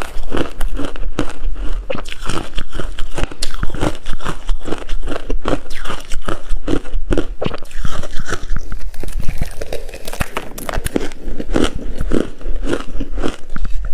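Coarse-grained crispy ice being bitten and chewed close to the microphone: a fast, unbroken run of loud crunches.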